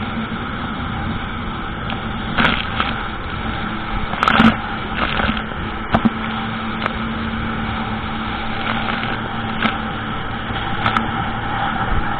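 Jet ski engine running steadily under way, with a few short sharp knocks or splashes scattered through.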